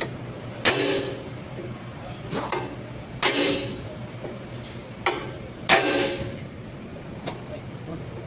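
Hammer blows on metal, about six uneven strikes that each ring briefly, over a steady low hum.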